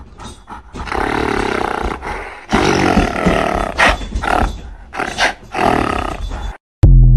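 Loud, animal-like roaring and growling in several long bouts that cut off abruptly, followed near the end by a single heavy low thump.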